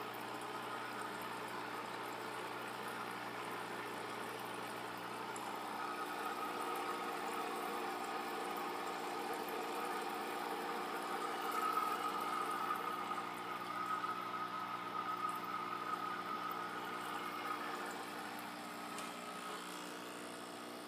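Aquarium pumps and filters running with a steady hum, over water trickling and bubbling; the sound swells a little in the middle and eases off near the end.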